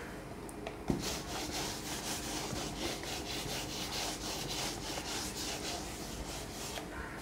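Whiteboard duster wiping a whiteboard in quick back-and-forth strokes, a few strokes a second, after a knock about a second in.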